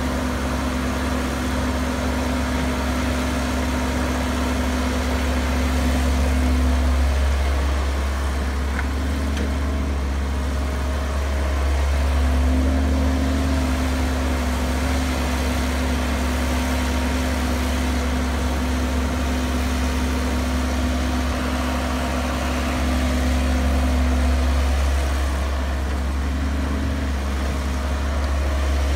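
Caterpillar tracked hydraulic excavator's diesel engine running steadily as it digs and loads dirt, with a deep hum under it and the level swelling several times as the machine works.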